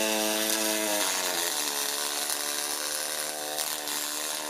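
Pulsed MIG welding arc on aluminum buzzing with a steady tone; its pitch drops slightly about a second in.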